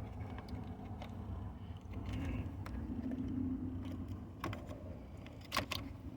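Plastic interior trim panel being handled and fitted back around the steering column, with a few sharp clicks as it goes into place, over a low steady rumble.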